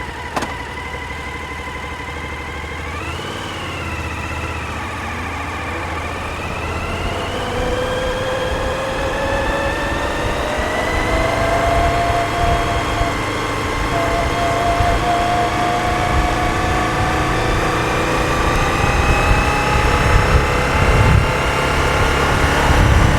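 Suzuki SV1000's 1000cc V-twin, fitted with a GPR aftermarket muffler, running under way. Its note rises slowly and grows steadily louder as the bike gathers speed.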